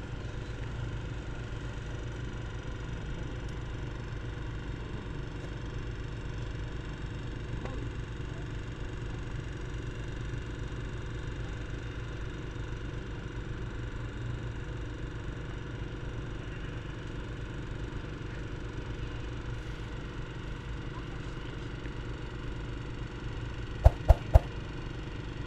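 Steady hum of a camera drone's motors and propellers, an even stack of tones that holds unchanged as the drone climbs. Three sharp clicks near the end.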